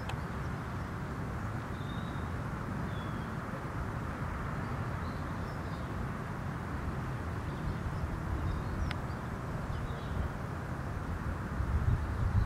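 Outdoor ambience: a steady low rumble of wind on the microphone, with a few faint, brief bird chirps.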